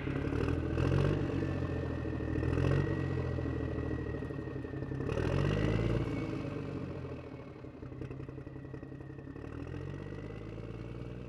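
Engine running, its pitch swelling and dropping back a few times and settling lower in the second half, with a steady high whine over it.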